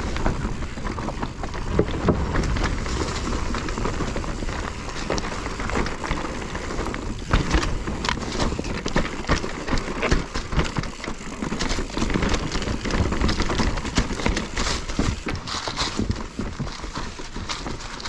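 Mountain bike riding down rocky singletrack: tyres rolling and crunching over dirt and rock, with many sharp knocks and rattles from the bike as it hits rocks, over a steady low rumble.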